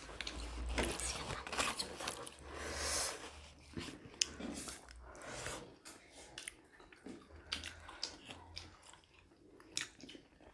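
Close-miked chewing and biting of steamed chicken momos dipped in sauce: irregular wet mouth smacks and small clicks.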